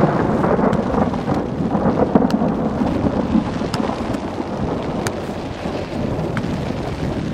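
Wind buffeting an outdoor camera microphone: a loud, uneven rushing noise that rises at the start and then holds.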